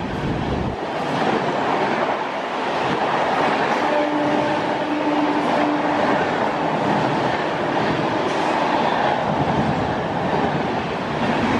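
Amrit Bharat Express coaches running past at speed: a loud, steady rush of wheels on the rails and moving air, with rail clatter.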